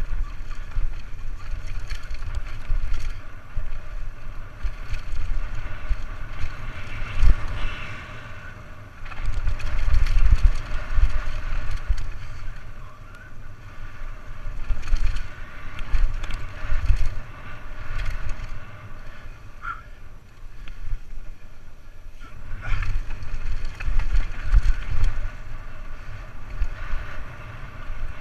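Downhill mountain bike descending a dirt forest trail, heard from a camera riding with it: wind buffeting the microphone in uneven gusts of low rumble, over tyre noise on the dirt and scattered knocks and rattles from the bike over bumps.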